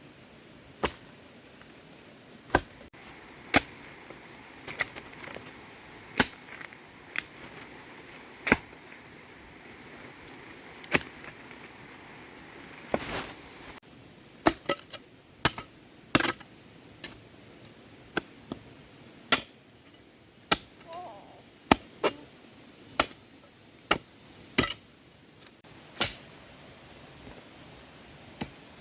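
A hand tool striking in single sharp knocks at an uneven pace, a little under one a second, with short gaps between blows.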